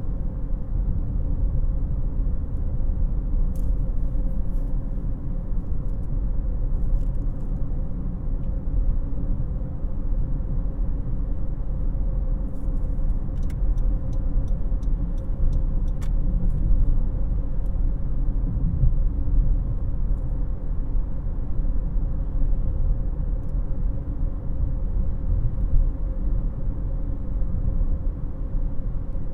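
Interior driving noise in a 2018 Honda CR-V LX: a steady low rumble of the tyres and the 2.4-litre four-cylinder engine, with a steady hum and scattered faint clicks in two short spells.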